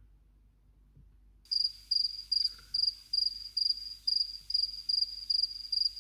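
Cricket chirping sound effect: a high chirp repeated evenly about two and a half times a second, starting suddenly about a second and a half in after near silence. It is the stock 'awkward silence' crickets edited in for comic effect.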